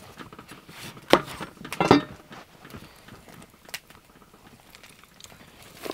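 Knife cutting a lime on a wooden cutting board: two sharp knocks of the blade on the board about a second and two seconds in, then a single faint click and little else as the halves are squeezed.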